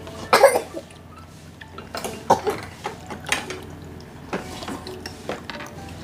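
Spoons clinking and scraping against porridge bowls during a meal: a scattering of separate short clicks and knocks, the loudest about half a second in.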